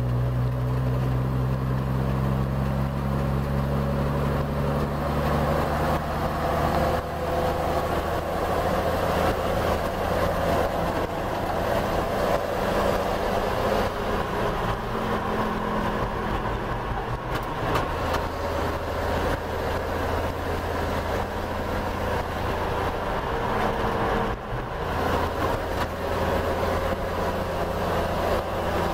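Waukesha F817G gasoline engine of a vintage International fire engine under way, heard from the cab, with road and wind noise. The engine's pitch climbs over the first few seconds as it picks up speed, then it settles into steady running.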